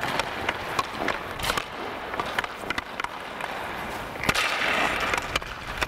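Hockey skates carving and scraping on ice, with sharp clacks of sticks on pucks. A louder crack comes about four seconds in, followed by a hissing scrape of skate blades on the ice.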